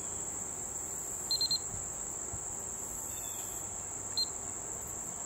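A steady, high-pitched drone of summer insects. A quick run of four short high beeps comes about a second and a half in, and one more beep about four seconds in.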